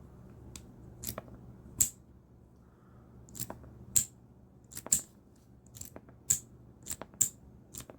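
Customized Glock 34's slide racked by hand over and over, sharp metallic clacks mostly in pairs as the slide is pulled back and snaps forward, about five times, cycling cartridges out of the pistol until the magazine runs empty.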